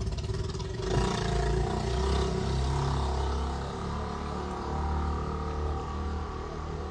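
A motor vehicle's engine running, swelling about a second in and then holding steady as a low rumble with a hum over it.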